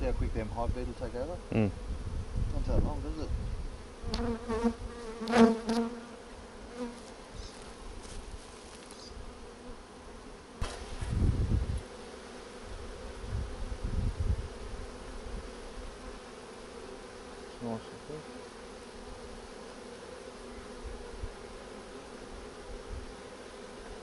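A mass of honey bees from a fallen wild nest buzzing in a steady hum. A few knocks and low rumbles come through in the first half, the loudest a sharp knock about five seconds in.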